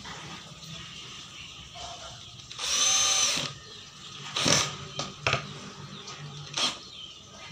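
Green cordless drill driving a drywall screw into a plywood panel. The motor whirs for about a second, then three short sharp sounds follow, about a second apart.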